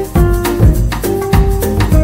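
Background music with held melody notes over a steady percussion beat.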